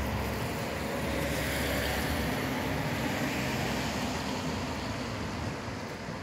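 A tram rolling away on its tracks, its low rumble fading, under a steady rushing hiss that slowly dies down.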